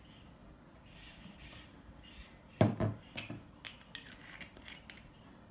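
Coconut oil poured faintly from a bottle into a jar of dried grated carrot. About halfway through come two sharp knocks as the bottle is set down on the table, then light clicks and taps, and a louder knock at the very end.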